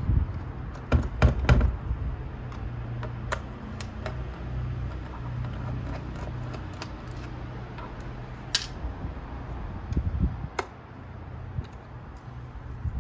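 Scattered clicks, taps and knocks of hands and tools working on the internal parts and connectors of an opened iMac, with a few louder knocks about a second in, over a steady low hum.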